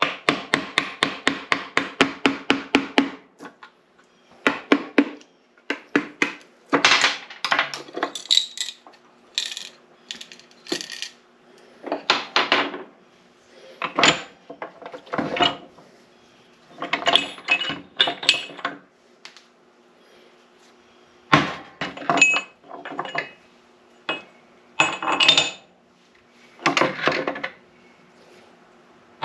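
Hand tools working on a cast-iron NP205 transfer case: a quick run of about twenty sharp metallic taps in the first three seconds, then scattered clanks and knocks of tools and parts.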